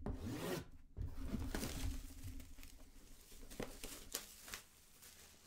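A sealed trading-card box's packaging being ripped open by hand: a run of irregular ripping and crackling sounds with a few sharp snaps.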